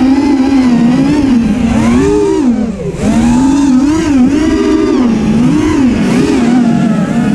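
FPV racing quadcopter's brushless motors and propellers whining, the pitch rising and falling with each throttle change. The pitch dips sharply about two and a half seconds in, then climbs again.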